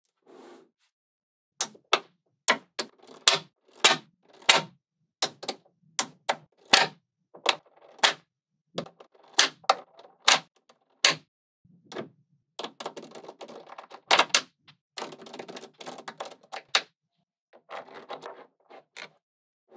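Small magnet balls snapping against each other with sharp clicks as rows are pressed onto a slab of magnet balls. The clicks come singly at uneven intervals at first, then in denser stretches of quick clicking and rattling past the middle.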